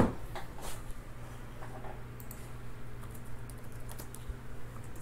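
Light, scattered clicks of typing on a computer keyboard, over a faint steady low hum, with a single sharper knock at the very start.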